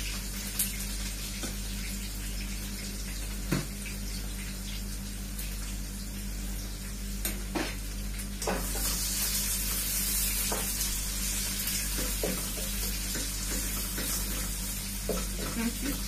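Chicken pieces and onion sizzling as they brown in a frying pan on a gas hob; the sizzle grows louder about halfway through. A few sharp clicks of a spatula against the pan.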